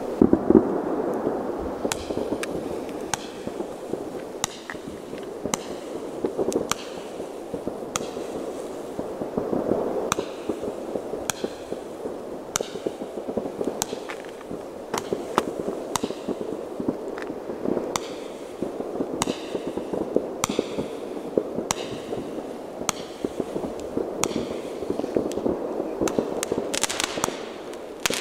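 An old firework, a 'UFO shot', going off: sharp cracks and pops about once a second over a steady rushing noise, turning into dense crackling near the end.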